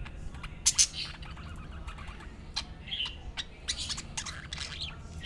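Budgies chirping and warbling, a run of quick short chirps and sharp clicking notes with a louder pair of calls about a second in.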